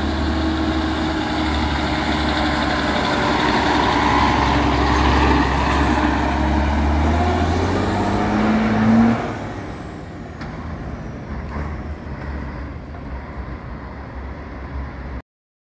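Vintage Scania L75 truck's diesel engine under way, revving with a rising pitch, then dropping suddenly about nine seconds in and running fainter as the truck moves off. The sound cuts off abruptly near the end.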